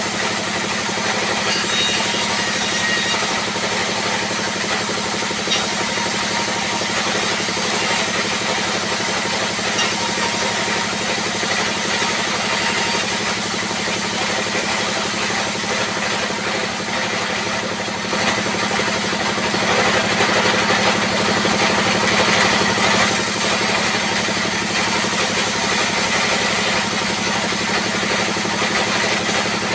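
Diesel-driven circular saw bench running steadily while rough planks are fed through and ripped into boards. The engine and spinning blade go on without a break and get a little louder about two-thirds of the way through.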